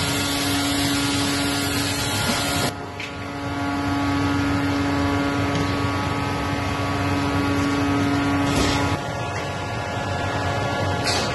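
Reimelt/Kemper industrial doughnut frying line running: a steady machine drone with a hum tone and a hiss over it. The hiss drops away about three seconds in, and the hum tone stops near nine seconds.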